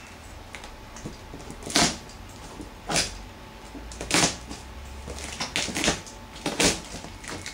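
Hands working at a cardboard shipping box sealed with packing tape: several short scraping and rustling noises of cardboard and tape, about a second apart.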